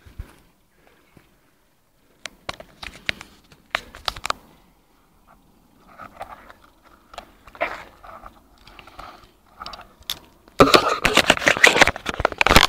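Handling noise on a phone's microphone: scattered clicks, taps and scrapes as the phone is moved about, then a loud rustling crackle for about two seconds near the end as the phone is covered up.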